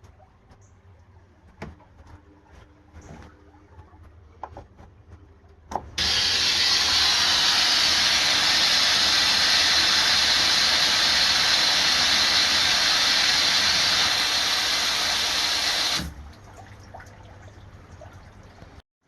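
Water-filter housing backflushing: pressurized water rushes out through the drain valve in a loud steady hiss that starts suddenly about six seconds in and cuts off abruptly about ten seconds later. A few faint clicks come before it.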